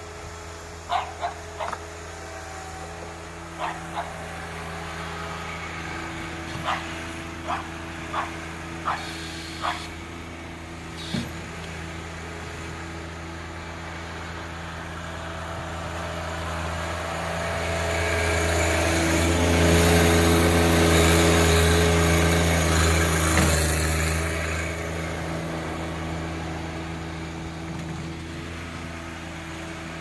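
John Deere 1025R compact tractor's three-cylinder diesel engine running steadily while plowing snow with a front blade. It swells louder through the middle, then fades. About a dozen short, sharp sounds stand out over it in the first ten seconds or so.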